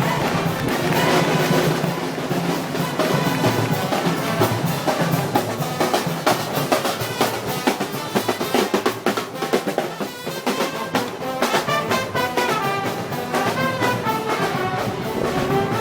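Festival band percussion playing: rapid snare drum rolls and strikes over a bass drum, with a melody joining in during the second half.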